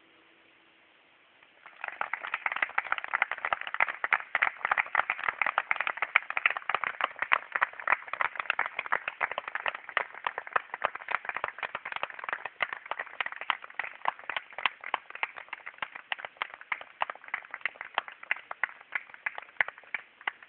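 Audience applause breaking out about two seconds in: dense, irregular clapping that carries on and thins slightly near the end.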